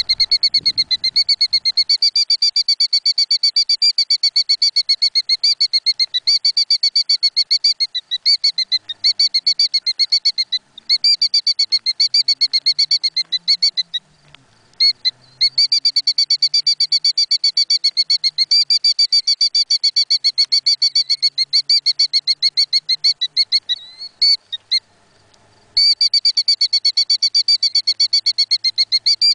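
Female killdeer calling loudly in nest-defense alarm: a rapid, continuous string of high, shrill notes, several a second. The calling breaks off briefly about halfway through and again a few seconds before the end.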